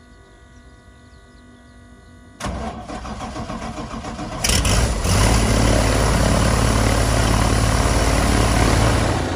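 Tarragon light aircraft's UL Power six-cylinder engine starting: a faint steady hum, then the starter cranks from about two and a half seconds in. The engine catches about four and a half seconds in and runs steadily and loudly at idle with the new propeller turning.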